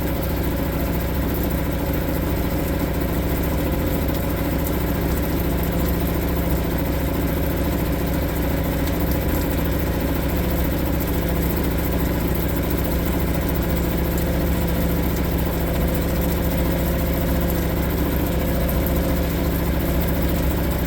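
Suzuki DF2.5 single-cylinder four-stroke outboard motor running steadily at idle after a warm start without choke.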